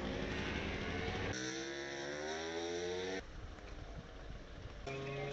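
Engines running in a few short clips cut together, with abrupt changes between them. In the middle clip the engine climbs steadily in pitch for about two seconds.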